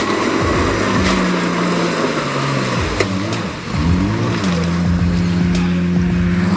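A vehicle engine under load, its pitch dipping, then revving up and back down, then holding at a steady speed.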